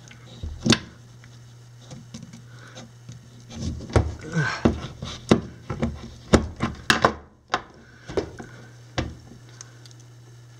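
Knife blade and slip-joint pliers working at the hard plastic ball of a Guinness can widget: irregular sharp clicks, knocks and scrapes, most of them bunched in the middle.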